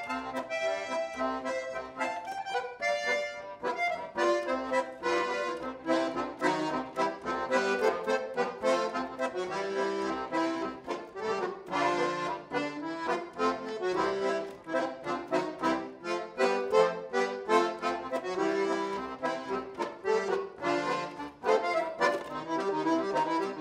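Chemnitzer-style concertina played solo: a dance tune with a reedy melody over chords.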